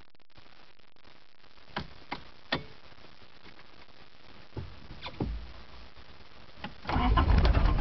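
A few light key clicks, then, near the end, a cold 1981 Isuzu I-Mark diesel engine starts after its glow plugs have preheated and settles into a steady, low, even running sound.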